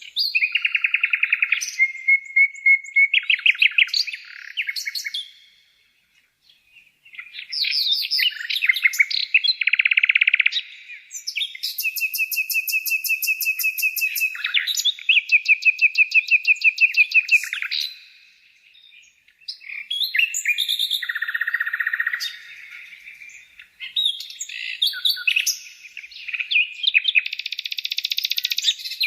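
Songbirds singing, with phrases of rapid high trills and chirps following one another and brief pauses about six seconds in and again around nineteen seconds.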